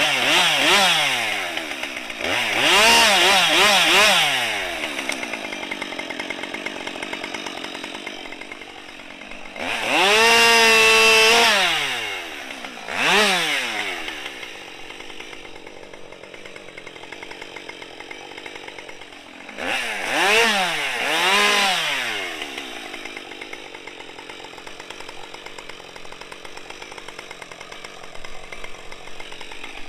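Husqvarna 550 XP two-stroke chainsaw blipped up and down in short throttle bursts, held at full throttle for about two seconds once, and idling in between, as careful cuts are made into a storm-damaged oak limb.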